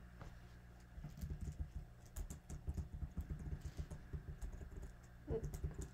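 Typing on a computer keyboard: a quick, irregular run of key clicks, then a short voice sound near the end.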